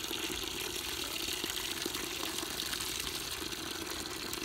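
Tap water pouring in a steady stream onto leafy greens in a plastic colander, filling the basin beneath.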